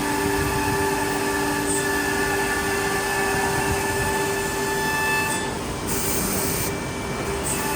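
CNC nesting router running under test: a steady machine whine with several held tones over dense mechanical noise. In the second half the higher hiss briefly drops away twice.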